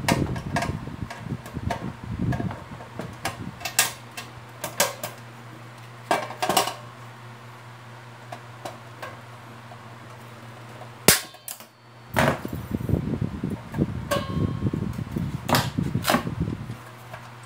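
Scattered clicks, taps and knocks of hands handling a plastic bathroom scale and working tie wire with pliers and cutters, with one sharp, loud click about two thirds of the way through. A steady low hum runs underneath.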